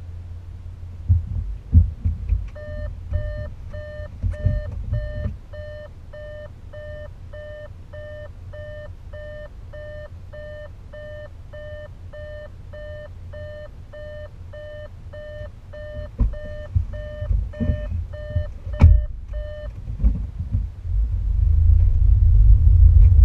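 A car's in-cabin warning chime beeps steadily about twice a second for some seventeen seconds. Beneath it run the low rumble of the moving car and a few dull thumps, and the rumble grows louder near the end.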